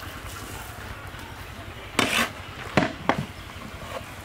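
A ladle scraping and knocking against a large aluminium cooking pot as cooked rice is turned: a short scrape about two seconds in, then two sharp knocks close together.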